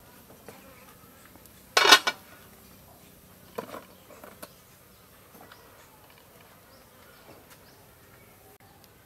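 Aluminium pot lid clattering onto a large cooking pot about two seconds in, a few quick metallic strikes, followed by a lighter knock a couple of seconds later. Faint buzzing and small ticks fill the rest.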